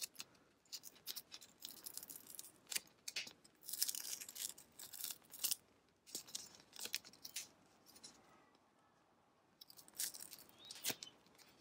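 Glitter heat-transfer vinyl being peeled by hand from its clear plastic carrier sheet during weeding: faint, irregular crinkling and small crackles and ticks, with a brief pause a little after the middle.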